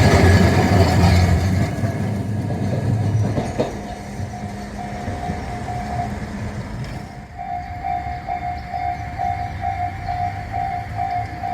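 A train rumbles over a railway level crossing and fades away over the first few seconds. Then the crossing's alarm bell rings in a steady, even clang, pauses briefly around the middle, and resumes.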